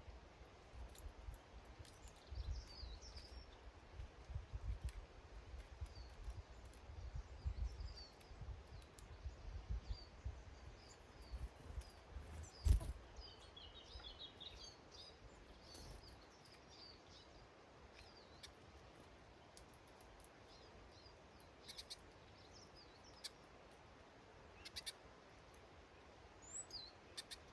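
Small garden birds chirping with short, high calls scattered throughout, busiest around the middle. Low gusty rumbles of wind buffet the microphone through the first half, and a single sharp knock comes about halfway through.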